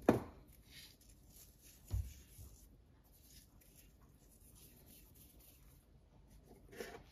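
Quiet kitchen handling sounds as salt is sprinkled by hand over food in a slow cooker: a short knock at the start, a soft thump about two seconds in, and faint light scratching and pattering.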